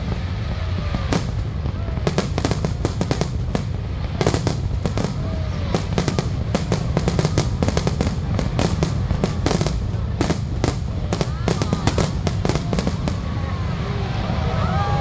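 Fireworks display: a dense, irregular run of sharp bangs and crackles as shells burst, over a continuous low rumble. Voices rise near the end.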